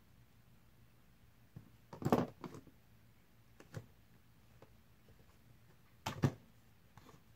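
Small plastic housing of a solar motion LED light being handled and pried open by hand: a few sharp plastic clicks and rattles, the loudest clusters about two seconds in and again about six seconds in, with a single click in between.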